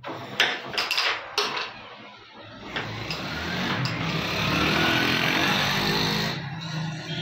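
Carrom striker flicked across the board, a few sharp clacks against coins and the wooden frame in the first second and a half. Then a loud motor starts up and its pitch rises for about four seconds before it cuts off suddenly.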